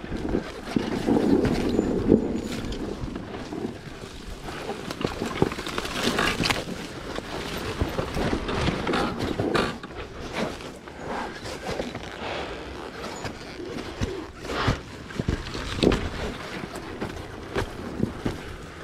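Husqvarna enduro dirt bike riding down a rough, rutted dirt trail, with many irregular knocks, rattles and scrapes from the bike over bumps and through brush.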